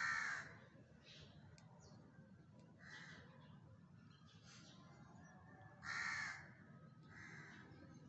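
Crows cawing harshly, a loud caw at the start and another about six seconds in, with fainter caws between. It is a noisy clamour that the rescuer puts down to the crows seeing a bird hanging upside down.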